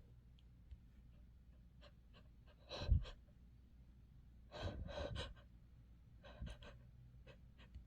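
Faint sniffs and breaths through an itchy, runny nose, with soft swallowing. The loudest, with a low thump, comes about three seconds in, and three quick sniffs about five seconds in.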